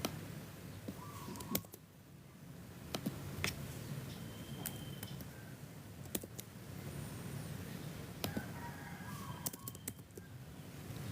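Scattered, irregular clicks of a computer keyboard and mouse being worked, with a few faint short bird chirps behind them.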